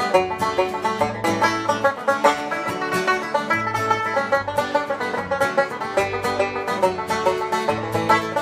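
Banjo playing a brisk traditional Irish tune in a rapid, unbroken run of picked notes.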